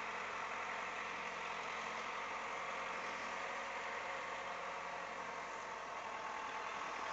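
Backhoe engine running steadily, with an even, unchanging drone.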